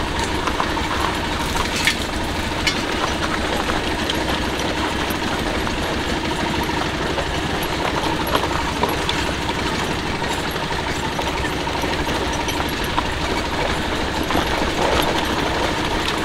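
Motorcycle engine running steadily as the bike rides over a rough, stony dirt trail.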